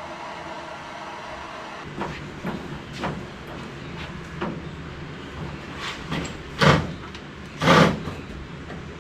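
A steady hum, then from about two seconds in a run of irregular knocks and clunks from hand tools worked against the old truck's parts, the two loudest near the end.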